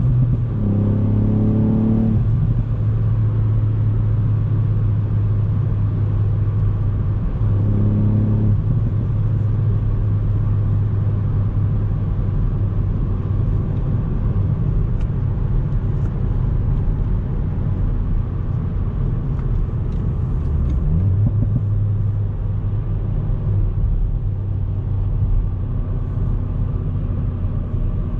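Ford Fiesta ST Mk8's 1.5-litre turbocharged three-cylinder engine running at steady cruising revs, with brief changes in engine note in the first two seconds, around eight seconds in and around twenty-one seconds in.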